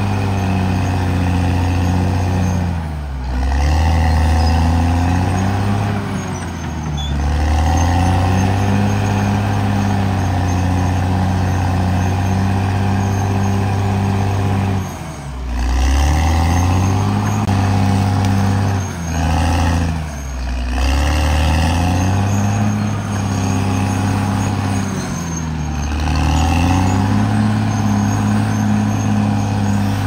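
Caterpillar D6R XL bulldozer's diesel engine running hard. About six times its note drops briefly and climbs back.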